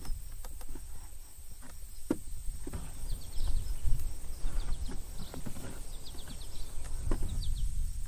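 Outdoor lakeside ambience: a steady low rumble, scattered light clicks and knocks, and from about three seconds in a run of short, high chirps repeating several times a second.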